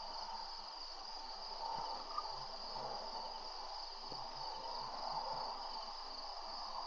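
Evening insect chorus, a steady high-pitched trilling over a faint outdoor hiss.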